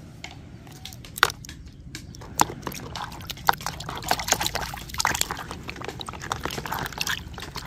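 A plastic action figure dunked and swished by hand in a plastic bowl of water: irregular sloshing and splashing with many short sharp splashes.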